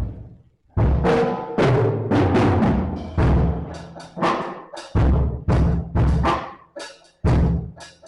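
A drum kit being played: one hit, then a continuous beat of heavy low drum hits mixed with sharper strokes from about a second in.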